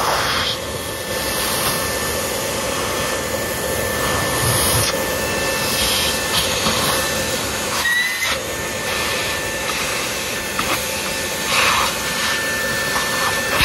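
Household vacuum cleaner running steadily, its nozzle sucking dust off an opened TV's circuit board, with a brief rising squeak about eight seconds in.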